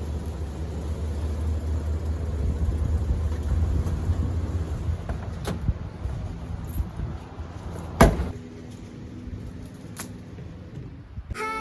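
A motor vehicle's engine running with a low rumble that fades out about six seconds in. A few sharp clicks follow, then one loud knock about eight seconds in, and music starts right at the end.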